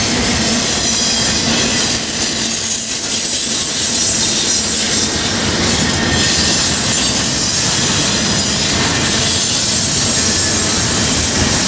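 Freight train cars rolling past close by: a steady, loud rumble of steel wheels on rail, with a thin high wheel squeal over it.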